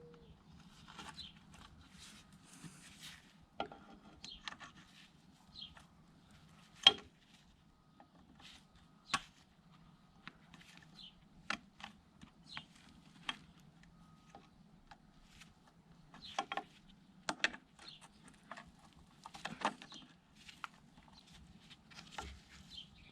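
Irregular sharp clicks and knocks of hand tools on metal during scooter rear-wheel bearing work, the loudest a single hard knock about seven seconds in, over a faint steady hum.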